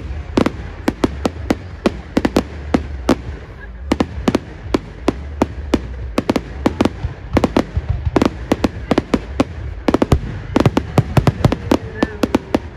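Fireworks display: aerial shells bursting in a rapid, irregular string of bangs and cracks, several a second. The bangs come thicker near the end.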